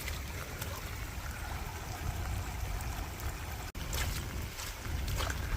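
Floodwater running steadily, with wind rumbling on the microphone.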